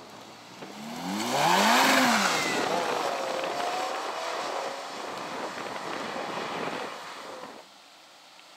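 Ferrari F8 Tributo's twin-turbo V8 revving hard as the car accelerates away, loudest about two seconds in. It then runs on through the gears, fading as the car drives off, and is gone about seven and a half seconds in.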